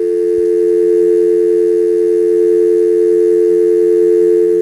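Telephone dial tone: a steady two-note hum, unbroken, on the line once the call has been hung up.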